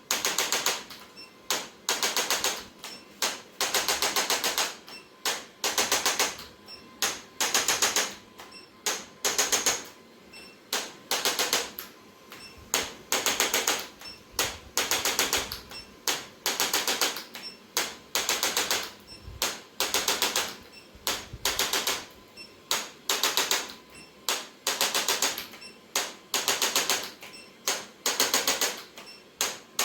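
Rapid mechanical clicking in short bursts. Each burst lasts well under a second to about a second and comes again every second or two.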